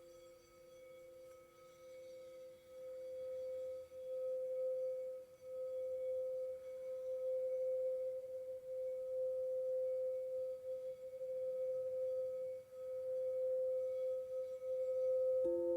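Quartz crystal singing bowls ringing. One bowl's pure tone swells over the first few seconds and then holds with a slow wavering, while a lower bowl fades out. Near the end a lower-pitched bowl sounds suddenly and joins in.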